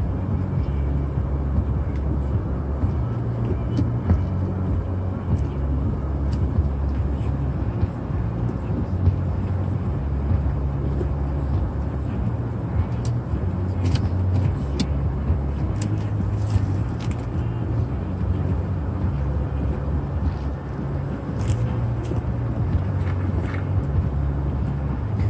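Car moving slowly, a steady low engine and road rumble heard from inside the car, with scattered faint ticks and clicks over it.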